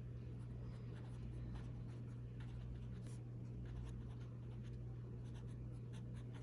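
Faint scratching of a pen writing annotations on a page, in many short strokes, over a steady low hum.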